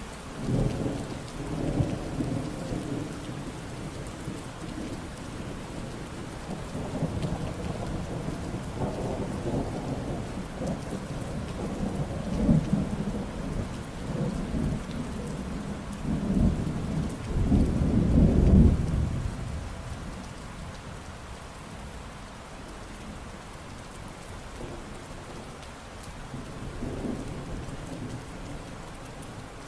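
Steady rain falling, with thunder: low rumbles begin at once, swell to the loudest peal just past halfway and die away, then a fainter rumble comes near the end.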